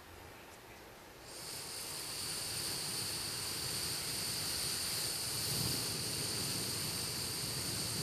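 Beatboxer's mouth-made nature imitation, picked up by a handheld microphone and repeated through a looping device: a steady rushing hiss comes in about a second in and holds, over a faint low rumble.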